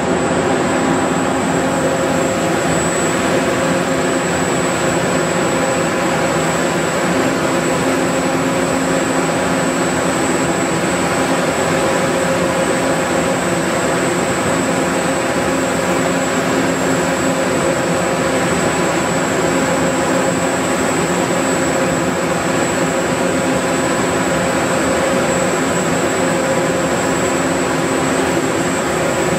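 Caterpillar C27 V12 diesel engine of a 750 kVA generator set running at a steady speed: a loud, even drone with a steady hum in it.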